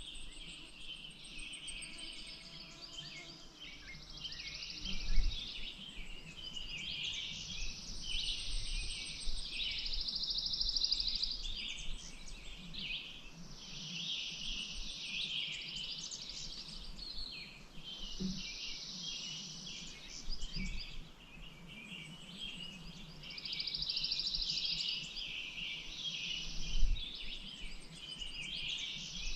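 Songbirds singing in an overlapping chorus, with high trilled phrases a couple of seconds long recurring every few seconds. Two brief low thumps, about five seconds in and near the end, are the loudest moments.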